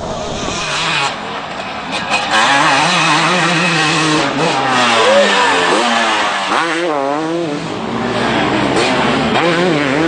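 Two-stroke dirt bike engines revving hard, the pitch rising and falling over and over as the throttle is worked on and off.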